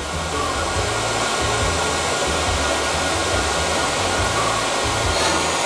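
Handheld electric hair dryer running steadily, blowing air onto wood charcoal in a barbecue to get it lit.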